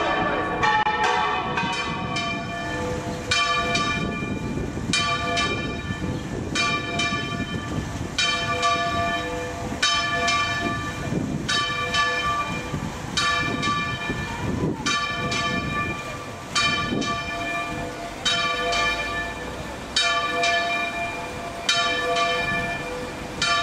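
Church bell tolling, one stroke about every one and a half seconds, each stroke ringing on into the next. In the first few seconds the strokes come faster and more bells sound together.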